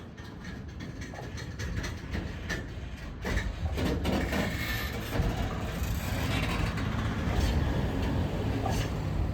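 Freight train passing, a rumble that builds over the first few seconds, with wheels clicking over the rail joints.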